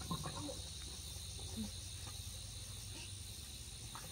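Insects chirring in a steady, high-pitched chorus, with a few faint short knocks and sounds underneath.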